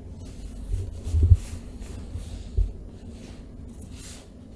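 Faint rustling of a nylon down jacket as a cat noses and pushes into it, with a few dull low thumps, the loudest about a second in and another a little later.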